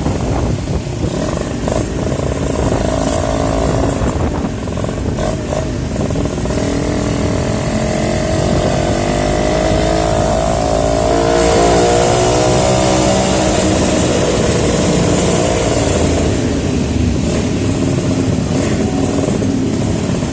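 Suzuki Tornado motorcycle's two-stroke engine running under way over a heavy low rumble of wind and road noise. Its pitch climbs from about six seconds in as it accelerates, then falls back near sixteen seconds as it eases off.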